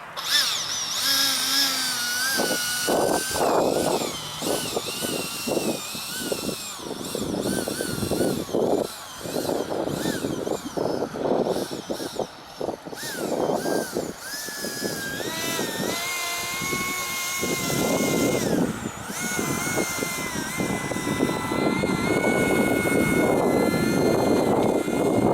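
Electric ducted fan of an RC recovery boat whining, its pitch rising and falling with the throttle and then holding steadier, over choppy water and wind noise.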